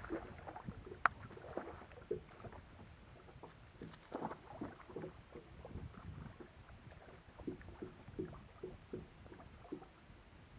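Water lapping and splashing against a boat's hull in irregular small bursts while a hooked fish is fought to the boat, with one sharp click about a second in.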